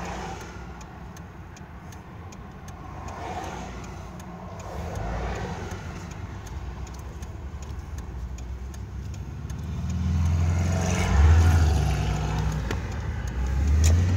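Car engine and road noise heard from inside the cabin as the car is driven slowly. A low, steady rumble swells noticeably about ten seconds in, as the engine pulls harder.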